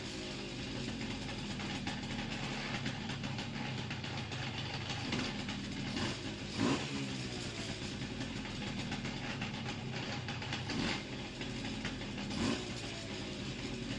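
Simson S90 two-stroke moped engine idling, blipped up briefly several times and dropping back to idle. The noises that come as the revs fall are ones the owner finds strange, with no cause named.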